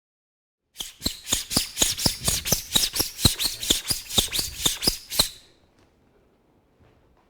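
Kitchen knife blade stropped quickly back and forth on a canvas strop, about five even strokes a second for four and a half seconds, stopping suddenly. The stropping takes off the burr left by the sharpening stone.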